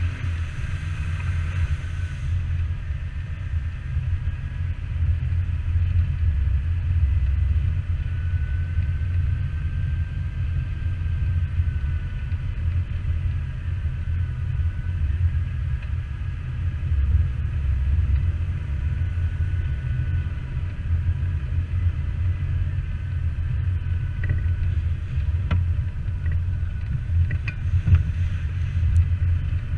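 Jeep driving off-road: a steady low engine and road rumble, with a faint high whine that wavers in pitch.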